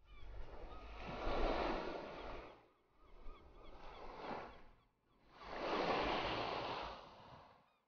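Ocean waves washing onto a shore, surging and drawing back three times, each surge about two and a half seconds long, with a low rumble underneath.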